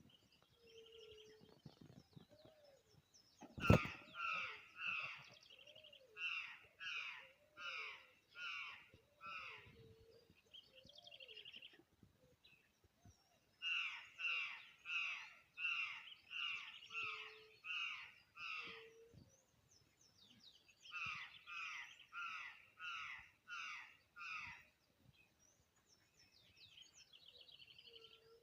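A bird calling in three runs of short, harsh, repeated notes, about two a second, with softer low notes in between. A single sharp click comes just before the first run.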